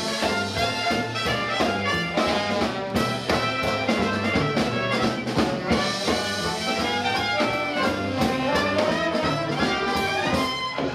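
Live Dixieland jazz band playing full ensemble: trumpet and saxophone lines together over a drum kit's steady beat.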